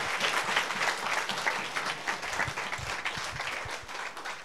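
Congregation applauding, many hands clapping at once, the clapping slowly dying down toward the end.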